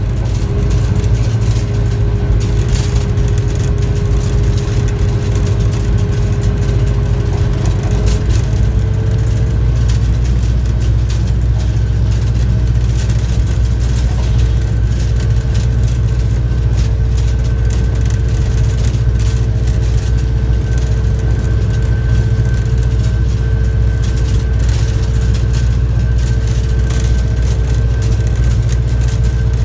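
Diesel locomotive running steadily under way: a loud low engine drone with a steady whine that steps up slightly about eight seconds in, and scattered sharp clicks.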